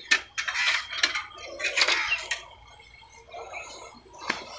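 Metal clinks and knocks of spanners and bicycle parts being handled, several separate strikes spread over a few seconds.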